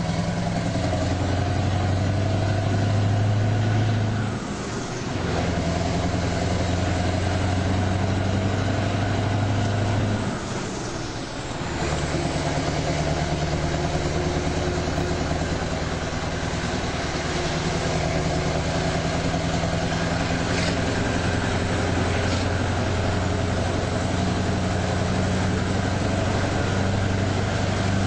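Heavy vehicle's engine heard from inside the cab, pulling uphill under load, with a steady note that breaks briefly twice, around four and eleven seconds in.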